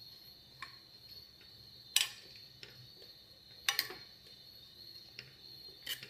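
Steel spoon clinking and scraping against a steel pan while stirring chunks of boiled pumpkin into a thick cream sauce: about half a dozen sharp clinks of varied loudness, the loudest about two seconds in and a quick pair just before four seconds, over a steady high-pitched background tone.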